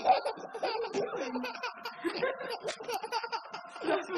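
A baby laughing hard, in a long run of short repeated bursts.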